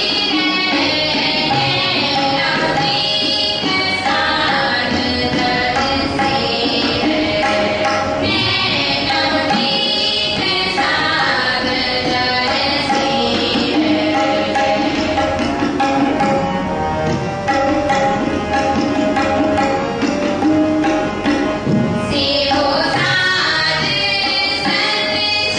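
Sikh kirtan in Raag Kanra: two harmoniums play sustained melody and chords over a tabla rhythm, with voices singing phrases that come and go, strongest at the start and again near the end.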